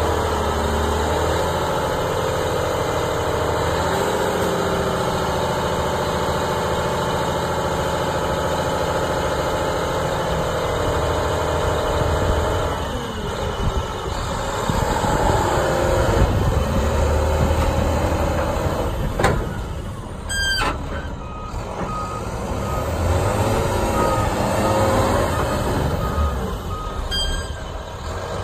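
Volvo A30F articulated dump truck's diesel engine running under load while its hydraulic dump body is raised and then lowered, with a steady whine over the engine in the first half. Near the end a sharp click and hiss of air, then the reversing alarm beeps evenly, about one beep a second, as the truck moves off.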